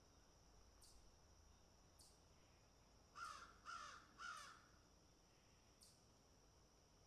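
A bird gives three short harsh calls about half a second apart, a little after three seconds in, over a faint steady high hiss with soft ticks about once a second.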